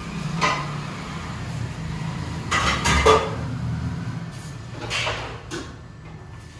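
Kitchen clatter: dishes and cupboard doors knocked about in a handful of separate clanks and bumps, over a steady low hum.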